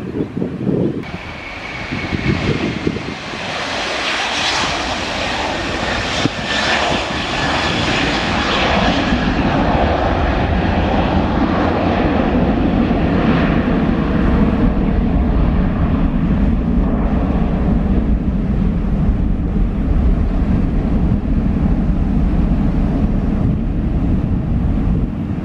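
Twin-engine jet airliners climbing out at takeoff power. First a Boeing 777's engines give a high roar with a faint whistle, which fades by about nine seconds in. Then an Airbus A330's engines give a steady deep rumble.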